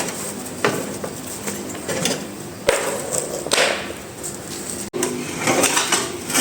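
Irregular knocks and clatter of tools and parts being handled, a handful of separate hits a second or so apart.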